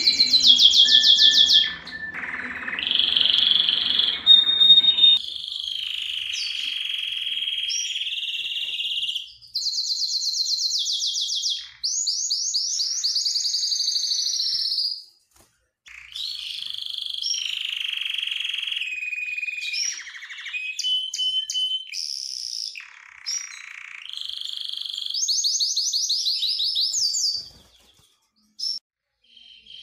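Domestic canary singing: phrase after phrase of rapid trills and held whistled notes, with short breaks about halfway through and near the end.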